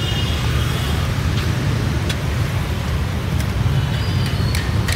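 Steady low rumble of street traffic, with a few sharp clicks of metal tongs and scissors in the later part.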